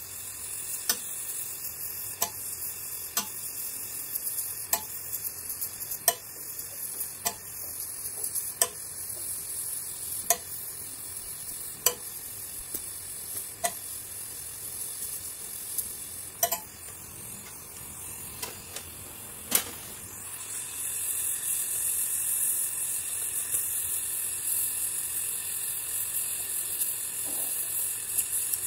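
LPG gas torch flame hissing steadily as it melts aluminium filler rod into a weld bead, with sharp pops every second or so through the first two-thirds. The hiss grows louder about two-thirds of the way in.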